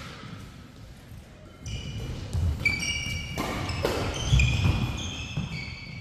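Badminton rally on an indoor court: a sharp racket-on-shuttle hit at the start, then court shoes squeaking repeatedly on the synthetic floor as players lunge and turn, with thudding footfalls, the heaviest about four and a half seconds in.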